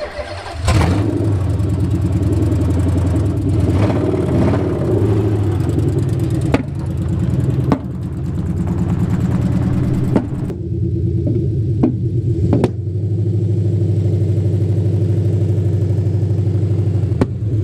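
Nissan VH45DE 4.5-litre V8 in an S13 240SX running and revving as the car pulls away and drives, settling into a steady, evenly pulsing run near the end. Several sharp backfire pops break through now and then.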